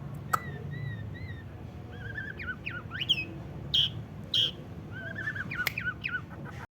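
Borneo white-rumped shama (murai batu Borneo) singing in separate phrases of clear whistled notes, steep rising and falling glides and quick trills, with a few sharp clicks between them. The sound cuts out briefly near the end.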